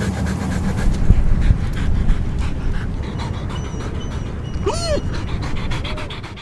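Saluki panting rapidly close to the microphone, with one short high call that rises and falls about five seconds in. The sound fades out at the end.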